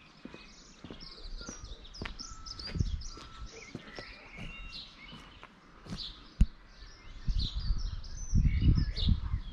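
Small birds chirping and singing, with footsteps and a sharp click about six and a half seconds in. Low rumbling on the microphone over the last two seconds.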